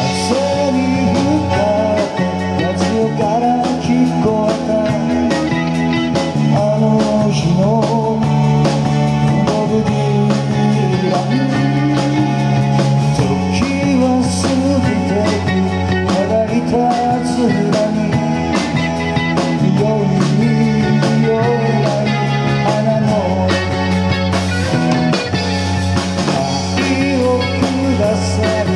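Amplified live rock band playing a song: drums, bass, electric guitars and keyboard, with a lead line bending in pitch over held bass notes.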